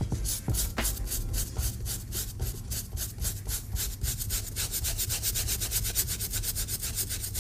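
Bristle brush scrubbing a sneaker with Crep Protect cleaner in quick back-and-forth strokes, about five or six a second, working at a stubborn stain.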